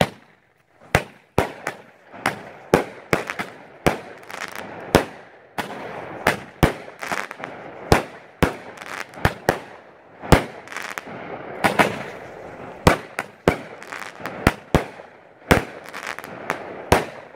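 A 200-gram consumer firework cake firing shot after shot, about two sharp bangs a second, with a continuous crackle between them.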